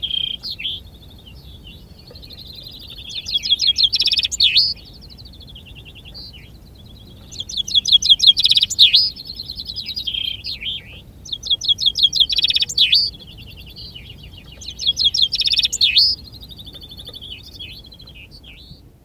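Male common chaffinches singing, the nearest bird giving four loud songs about four seconds apart. Each song is a rapid trill of repeated notes ending in a short downward flourish, with fainter chaffinch songs from other birds between them.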